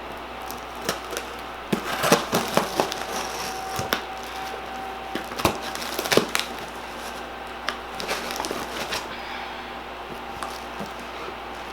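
Things being handled at close range: scattered clicks, knocks and rustling, busiest in the middle, over a steady low hum.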